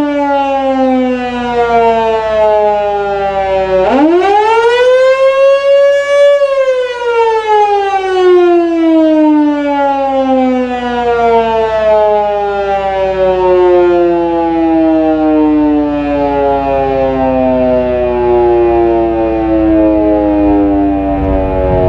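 Federal Signal Canadian Model 2 electromechanical fire siren sounding its test with one steady tone. It is winding down, then about four seconds in it spins back up to a high pitch for a couple of seconds, then begins a long, slow wind-down that is still sounding, low in pitch, at the end.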